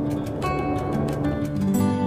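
Background music with a steady beat and held notes, changing to a new chord near the end.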